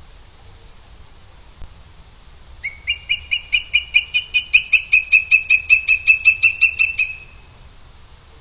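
Booted eagle calling: a rapid run of about twenty high, clipped notes, roughly five a second. It starts nearly three seconds in, grows louder over its first second and stops abruptly after about four seconds.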